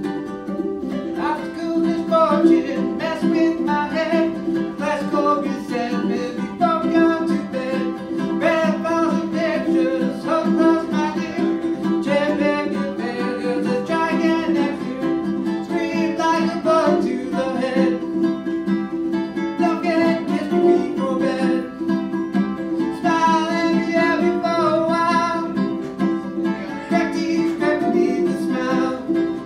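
A man singing while strumming a ukulele; the voice comes in about a second in.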